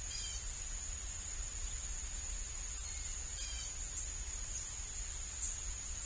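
Steady high-pitched insect trill, with two short bursts of small bird chirps.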